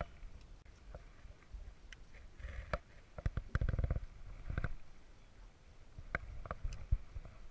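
Wind rumbling on the camera microphone, with scattered clicks and knocks from handling a baitcasting rod and reel in an aluminium boat, and a short buzz about three and a half seconds in.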